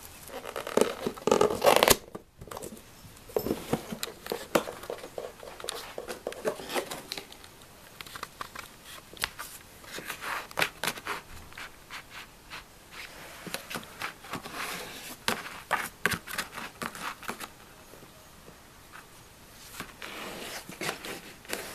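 A cat scratching and scrabbling against a small cardboard box as she moves about inside it, in irregular scratchy bursts, loudest about a second in.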